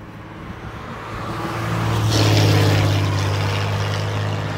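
A road vehicle passing by on the highway. Its tyre and engine noise swells to a peak about two seconds in, then slowly fades.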